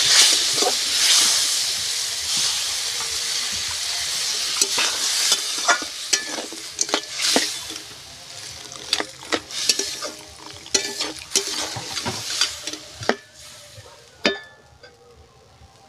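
Crab curry sizzling in a hot aluminium kadai as water is added to the fried masala, the loud hiss dying down over the first half. A spatula stirs the curry, scraping and knocking against the pan many times.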